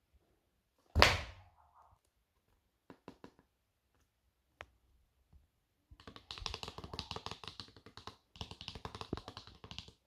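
Hand handling a cardboard eyeshadow palette: one sharp knock about a second in, a few light clicks, then two stretches of rapid fingertip tapping and rubbing on the palette's card, each lasting one to two seconds.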